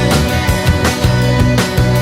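Rock music: a band with guitar, bass and drums keeping a steady beat.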